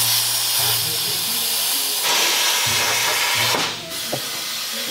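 Plasma cutter hissing steadily as it cuts through the steel of a stripped car body. The hiss dips briefly about three and a half seconds in, then carries on a little quieter.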